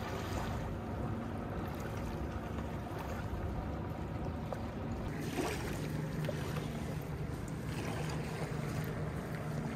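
Steady low drone of a motorboat engine running out on the lake, with wind rumbling on the microphone.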